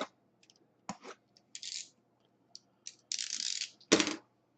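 Sealed cardboard collectibles boxes being handled. Several sharp clicks and knocks are mixed with short scraping rustles, and the loudest knock comes near the end.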